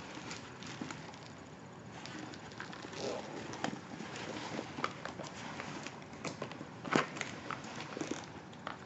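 Handling of a leather handbag and its straps: soft rustling of the leather with scattered small clicks and clinks of metal hardware, the sharpest click about seven seconds in.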